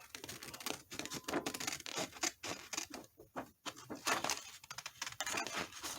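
Scissors cutting through paper in a quick run of short, crisp snips, pausing briefly a little past the middle, as a traced shape is cut out.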